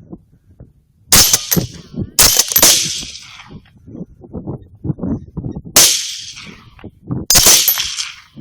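Four rifle shots fired at wild hogs, each a sharp crack with a short ringing tail: two about a second apart near the start, then two more about a second and a half apart a few seconds later.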